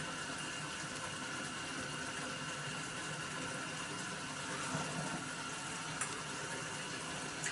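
Porcini mushrooms frying in olive oil in a mess tin over a gas burner: a steady, even sizzle.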